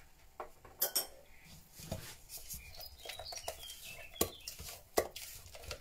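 Spatula stirring and scraping wet mashed-banana batter in a plastic mixing bowl. A few sharp knocks and clinks are scattered through the stirring.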